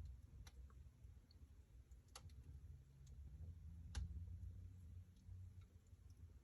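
Wood fire burning in a fireplace, faintly crackling: a few sharp pops, the clearest about half a second, two seconds and four seconds in, with smaller ticks between them, over a low rumble.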